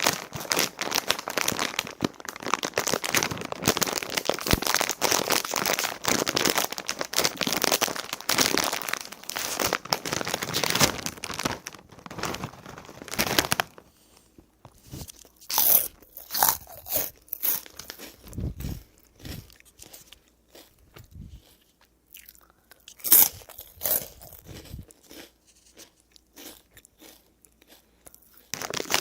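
A crinkly chip bag being handled, with dense continuous crackling for about the first half, then potato chips being bitten and chewed: separate loud crunches with short quiet gaps between them.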